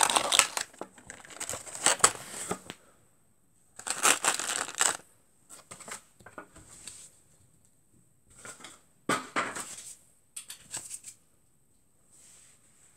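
Clear plastic blister packaging of a diecast toy car crinkling and crackling in short, irregular bursts as it is handled, dying away near the end.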